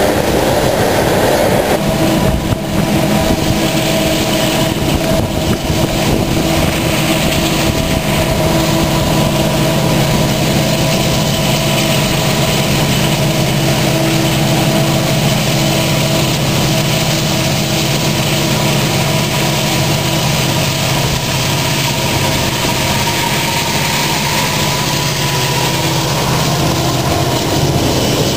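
Freight train hopper cars rolling past for the first couple of seconds. Then the steady drone of diesel freight locomotives led by Canadian National units, with several held engine tones, as they come up and pass right below near the end.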